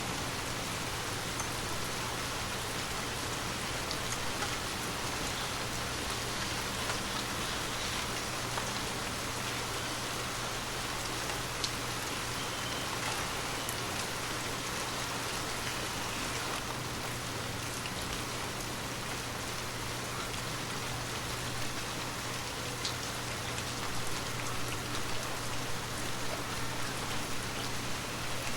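Gentle, steady rain falling, a dense even hiss scattered with faint drop ticks, over a low steady hum.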